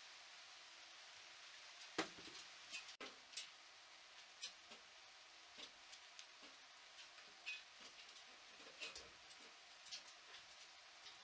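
A raccoon's claws clicking and tapping on a patio table as it climbs up to a plate of food: faint, irregular clicks over near silence, with one sharper click about two seconds in.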